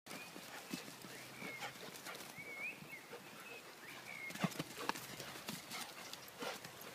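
Dogs romping in play: irregular knocks and taps, with a few short high squeaks in the first half.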